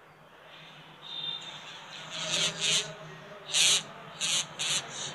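Fitspark Eagle iMax action camera's built-in speaker playing back a mic-test recording as a run of short, hissy, crackly bursts starting about a second in. The poor sound is what the owner takes for a faulty external mic or mic port.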